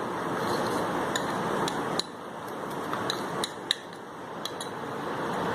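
A spoon clinking and tapping against metal bowls and containers, about a dozen light clicks spread irregularly over a steady hiss.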